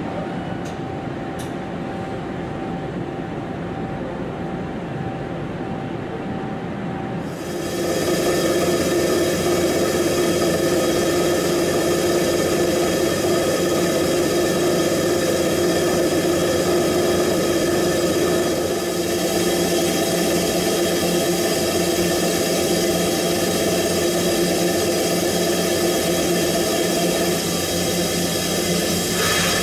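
Mazak Variaxis i-700T multitasking machine running. For about seven seconds there is a steady whir with one steady tone. Then it steps up to a louder, steady machining sound, several whining tones over a hiss, as the skiving cutter and the face gear turn together and cut the teeth.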